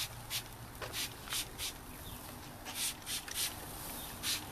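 Hand trigger spray bottle spritzing a pork butt on the smoker grate: a string of short hissing squirts, several a second, with a pause of about a second in the middle before a few more.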